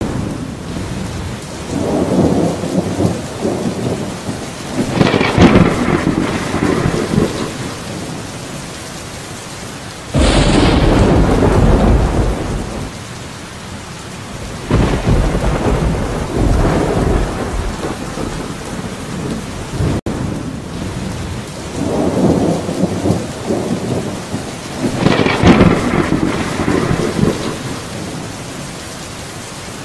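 Steady rain with rolling thunder. Rumbles swell and fade in the first few seconds, and a sharp, loud clap breaks about ten seconds in, then rolls away. The same thunder and rain pattern repeats about twenty seconds in, as in a looped storm recording.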